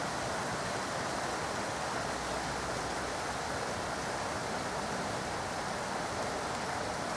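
Steady rain falling: an even hiss that neither rises nor falls, with no single drops or knocks standing out.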